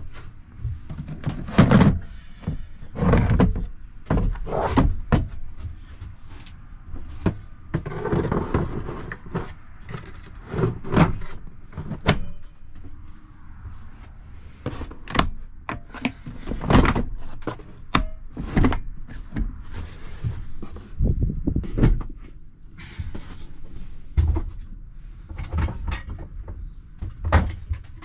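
A run of irregular knocks, thumps and clanks, a few every couple of seconds, with short scraping or rustling sounds between them. There is no steady running tool.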